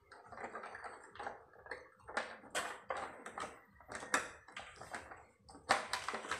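Irregular light plastic clicks and knocks from hands fitting the louver back onto a wall-mounted split-type air conditioner's indoor unit.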